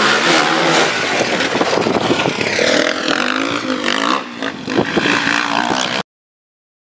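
Rally-raid race car engine running hard at high revs, its pitch rising and falling through the gears as it goes by. The sound cuts off suddenly about six seconds in.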